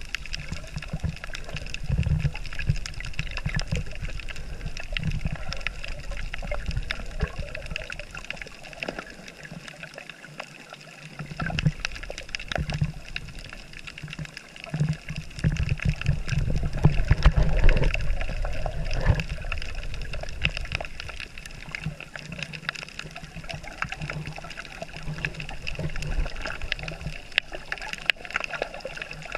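Muffled underwater sound of water moving around a submerged camera: a low rumble that swells and fades every few seconds, with faint steady high tones above it.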